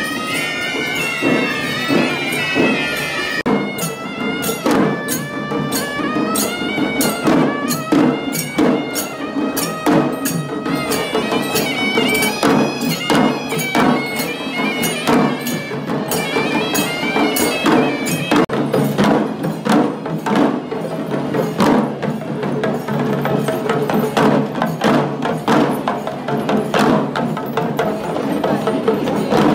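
Traditional Sri Lankan procession music played live: drums beaten in fast, even strokes under a high, wavering reed-pipe melody (horanewa). Past the middle the pipe fades and the drums carry on alone.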